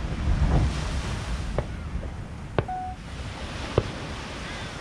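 Wind buffeting the microphone over a low rumble of surf, with three sharp, distant pops of fireworks about a second apart and a brief steady beep near the middle.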